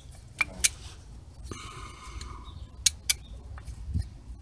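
Sharp metal clicks as new front brake pads are forced into the caliper bracket's spring clips: two pairs of clicks, with a brief high squeak about halfway through. The pads are a tight fit and resist going in.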